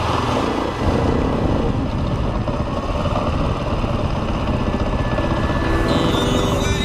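KTM 450 EXC four-stroke single-cylinder enduro engine running under load, picked up by an onboard camera as the bike rides a forest trail. The engine note stays loud and continuous, with rough, shifting noise from the ride.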